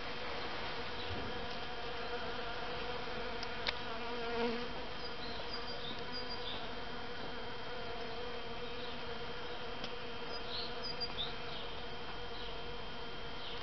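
A steady buzzing hum throughout, with one sharp click a few seconds in and a few faint high chirps later.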